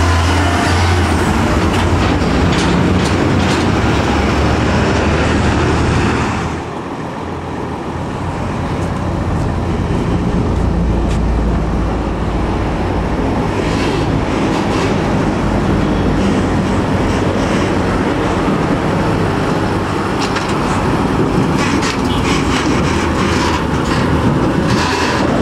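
Diesel engines of heavy UD Quester GWE 370 tractor units pulling loaded lowboy trailers slowly past at close range, with tyre and road noise. The sound drops off suddenly about six seconds in, then builds again as the next truck comes by.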